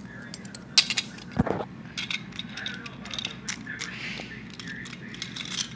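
Plastic Beyblade spinning tops handled and knocked together by hand: scattered light clicks and knocks, with a duller thump about a second and a half in.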